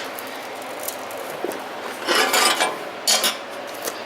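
Metal scraping and rubbing in two short bursts, one about two seconds in and a shorter one about a second later, with a few light clicks, as the metal bar is worked into shape.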